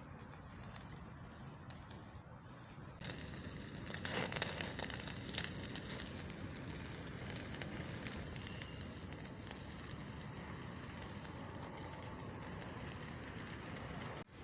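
Wood fire crackling and popping. It is quieter for the first few seconds, then comes in louder and full of sharp pops about three seconds in.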